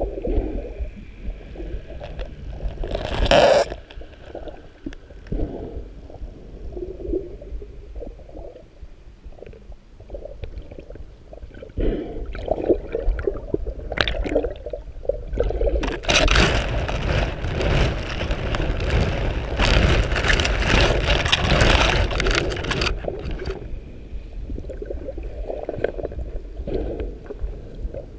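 Muffled water noise picked up by an underwater camera near the surface, with sloshing and gurgling throughout. A short loud rush of water comes about three seconds in, and a longer, louder rush of splashing and bubbling lasts about seven seconds past the middle.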